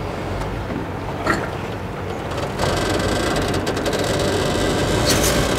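V-belts being worked off a straw reaper's drive pulley by hand, with a single click about a second in and a fast run of mechanical clicking from about halfway in as the pulley is turned.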